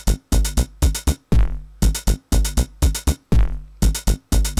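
Hydrogen drum machine software playing back a programmed electronic drum loop at 120 BPM: sampled drum hits several times a second over a synth bass line, with a longer decaying hit about every two seconds.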